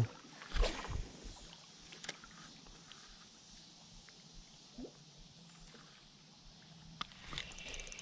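Low creek water sloshing with a few knocks of handling. Near the end come splashing and the fast fine ticking of a spinning reel being cranked as a hooked fish is brought in.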